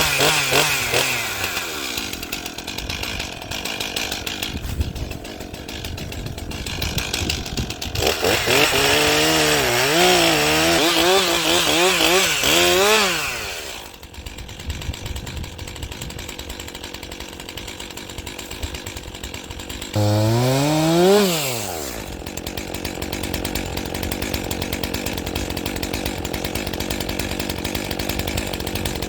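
Two-stroke chainsaw clearing fallen trees from a trail: it runs at idle, is revved high for about five seconds with its pitch wavering as it cuts, drops back, then gives one quick rev up and down before settling to a steady run.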